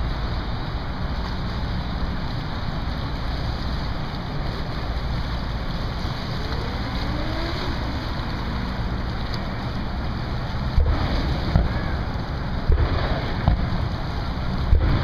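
Wind buffeting the microphone over a steady low rumble from a small boat and the water around it, with a few sharp thumps in the last few seconds.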